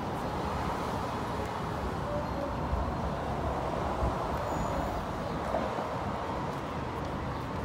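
Downtown city street ambience: a steady wash of road traffic noise.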